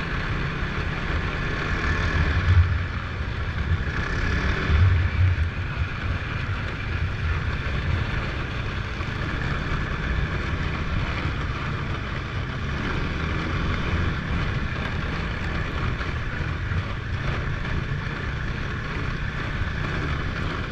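Snowmobile engine running steadily under way, with wind rushing over the microphone. The engine gets louder for a moment twice in the first five seconds.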